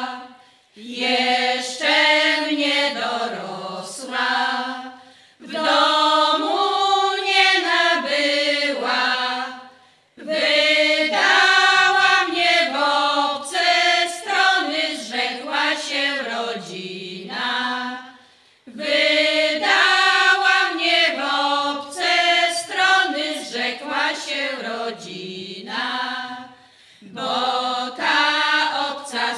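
A small group of women singing a Polish folk song together, unaccompanied, in sung phrases of a few seconds each, with short pauses for breath between them.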